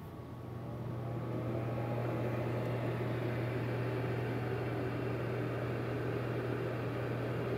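Presto Dehydro digital food dehydrator running just after being switched on: its fan motor gives a steady hum that builds up over the first second or two, then holds level.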